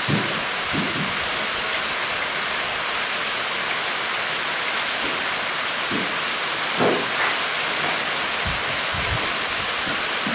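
Heavy rain pouring down steadily, with a few soft low thumps.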